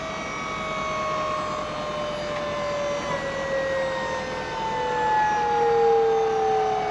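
SnoPower snow pusher's electric-hydraulic pump whining steadily as it folds the plow's wing tips up into travel mode. The pitch falls slowly throughout.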